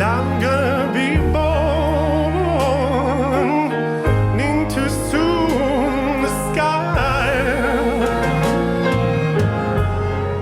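A recorded song playing: a voice sings long wordless runs with vibrato over sustained low bass notes that change every few seconds.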